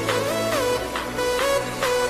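Electronic dance music with a gliding synth lead over a steady bass and beat.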